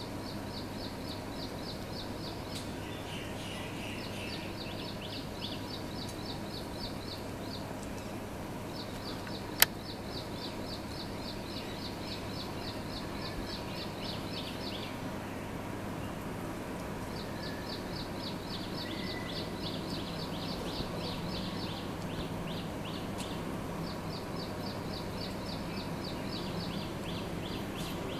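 Outdoor ambience with a high, fast pulsing trill of several pulses a second that runs for a few seconds at a time and repeats after short breaks. A single sharp click sounds about ten seconds in.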